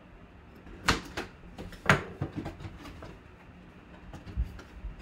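A sealed cardboard box is cut open and unpacked: the blade, tape and flaps give sharp snaps about one and two seconds in, then smaller clicks and rustles of cardboard and paper, and a low thump near the end.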